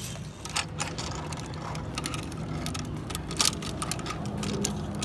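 Sharp metallic clicks and clinks of steel carabiners and a zip-line trolley being handled at a steel cable. The loudest clicks come a little after three seconds in.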